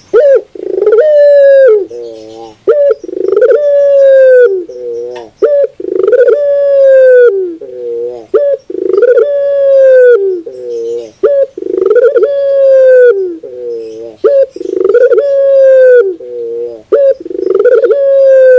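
A caged puter pelung, a ringneck dove bred for a long, powerful coo, cooing loudly over and over. Each phrase is a long held coo followed by a quick run of falling notes, repeated about every three seconds.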